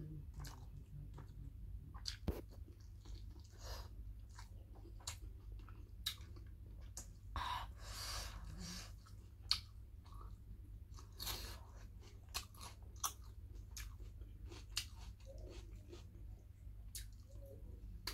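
Close-miked mouth sounds of a person chewing pork and rice: a stream of soft wet smacks and clicks, with a couple of longer crunchy stretches near the middle, over a steady low hum.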